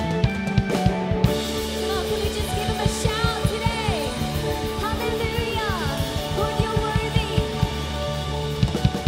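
Live worship band playing: a drum kit keeps a fast, steady beat under held guitar and keyboard chords, while a woman sings sliding, drawn-out notes over it.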